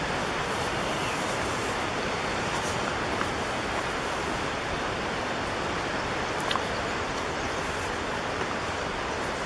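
Steady rushing water, an even hiss with no rhythm, and one brief tap about six and a half seconds in.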